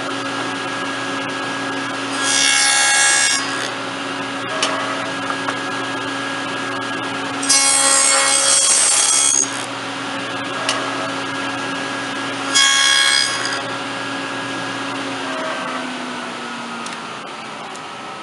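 Table saw running and cutting a tenon on the end of a wooden table apron: the motor hums steadily, and three times the blade bites into the wood with a louder rasping cut lasting a second or two. Near the end the motor winds down, its hum falling in pitch.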